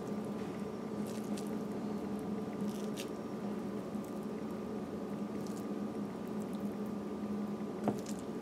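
Soft squishing and faint crackling clicks of a crumbly curried shrimp filling being pressed by hand into a hollowed bitter melon, over a steady low hum. A sharper click comes near the end.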